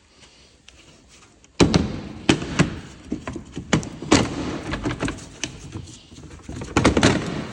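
Plastic bumper trim being handled and worked on: after a quiet second and a half, a busy run of knocks, taps and rattling starts, with several sharp knocks among it.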